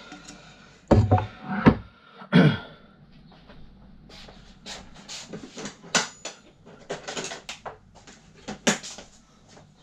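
Metal scooter parts knocking and clinking as an aluminium push scooter is taken apart and its pieces handled and set down, with a few loud knocks in the first three seconds and then a run of lighter clicks and clinks.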